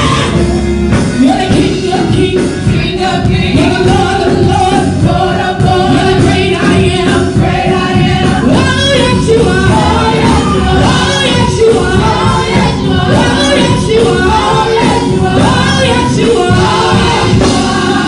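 Live gospel praise music: singers with instrumental backing, loud and steady throughout.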